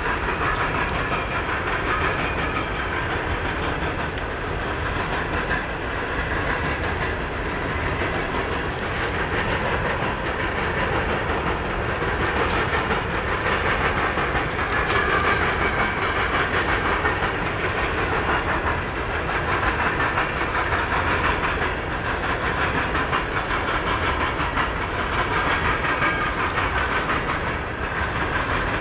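Freight cars of two trains rolling past at once, empty coal hoppers and autorack cars: a steady rumble and rattle of steel wheels on rail, with a couple of sharper clanks or squeals about nine and twelve seconds in.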